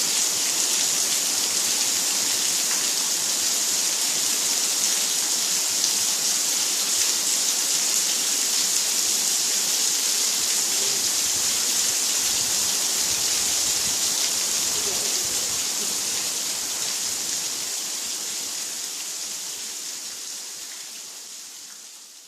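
Monsoon rain falling steadily, a dense even hiss. It fades out gradually over the last several seconds.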